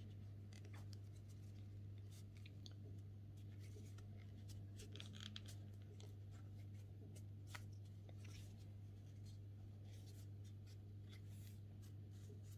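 Faint rustling, scraping and light ticks of a crochet hook pulling thick T-shirt yarn through stitches, over a steady low hum.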